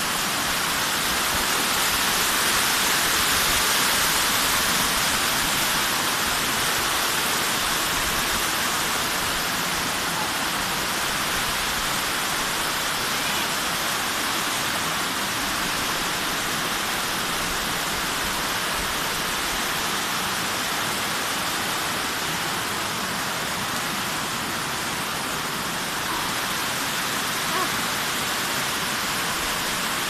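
Shallow waterfall cascading down sloping rock slabs: a steady rush of water.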